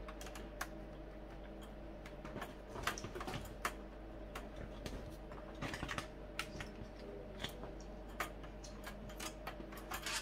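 Screwdriver unscrewing the screws of an Amiga 500 Plus's sheet-metal shield: irregular light clicks and ticks of the tip, the screws and handling against the metal, in small clusters.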